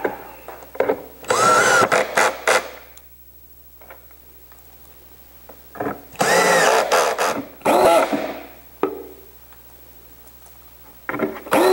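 DeWalt cordless drill-driver sinking wood screws into plywood: the motor runs up twice, once about a second in, rising in pitch, and again for about two seconds near the middle. Small clicks from handling screws fall between the runs.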